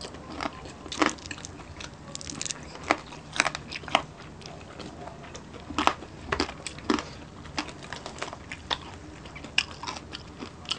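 Close-miked eating sounds of fried tilapia, sisig and rice eaten by hand: chewing and biting with irregular sharp crunches throughout.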